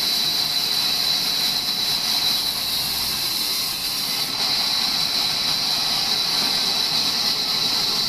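Large vertical band saw running and ripping lengthwise through a log: a loud, steady hiss, strongest high up.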